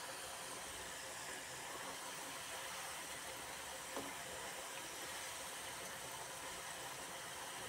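Potato fries deep-frying in hot oil: a steady sizzling hiss. A metal slotted spoon gives one light click against the wok about four seconds in.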